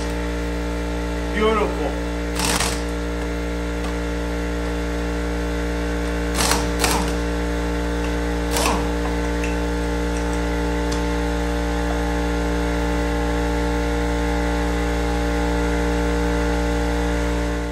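Air compressor running with a steady, even hum. A few short knocks are heard in the first nine seconds, from the bead breaker and air impact wrench being handled.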